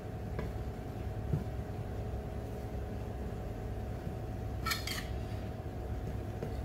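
A metal spoon clinking against a plate, with a pair of sharp clinks about five seconds in and a soft knock earlier, over a steady low hum.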